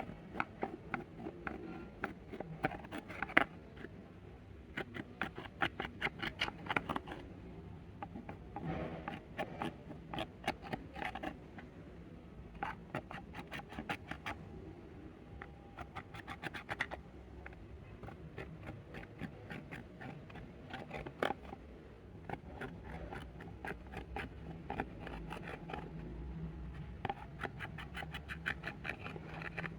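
Clear slime being worked and mixed, giving runs of quick sticky clicks and pops in bursts of a second or two, with short pauses between.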